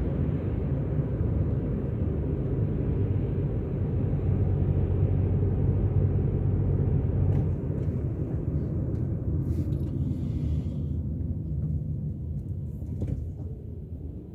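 A car's steady low road drone of engine and tyres while driving, easing off a little near the end.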